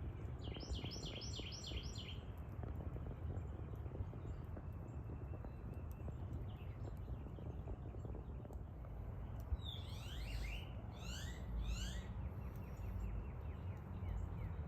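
Songbird singing: a quick run of about five repeated sweeping notes starting about half a second in, then a second phrase of several sweeping notes about ten seconds in. Both sound over a steady low rumble.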